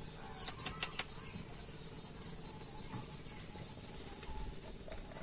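A loud, high-pitched insect chorus pulsing steadily about four to five times a second. A few faint clicks come about half a second in.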